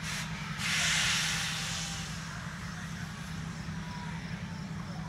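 A burst of hissing from the railroad locomotives starts about half a second in, is loudest for about a second and then tails off, over a steady low hum.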